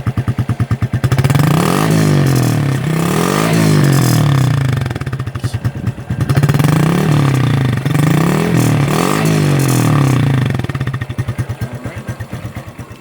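Honda RS125 Fi single-cylinder four-stroke motorcycle engine breathing through a fitted Suzuki Raider R150 stock muffler. It idles with an even pulse, is blipped up and down in two runs of revs, then drops back to idle near the end.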